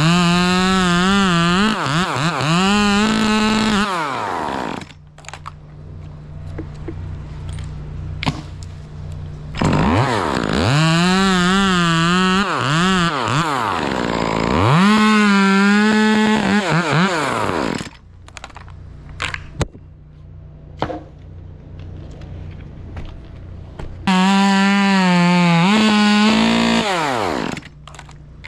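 Chainsaw run at high revs in three bursts, its pitch sagging and recovering within each as if loaded in a cut, then falling away. It drops back to a low idle between bursts.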